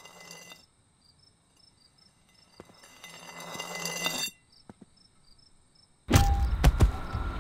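Crickets chirping steadily in the background. A swelling rush of sound builds for about a second and cuts off, then a sudden loud crashing hit comes about six seconds in and runs on as a loud, dense sound.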